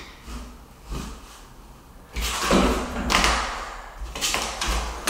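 Utility knife scoring a luxury vinyl plank, several drawn scraping strokes starting about two seconds in, with lighter scuffs of the tool and square before them.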